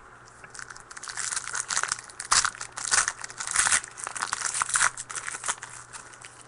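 Crinkling and tearing of a trading-card pack's wrapper as it is ripped open and handled, a dense crackle that is loudest in the middle.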